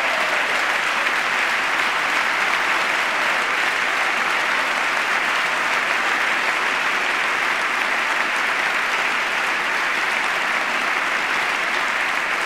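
Standing ovation from a large seated audience of legislators: many people clapping together in a steady, unbroken applause.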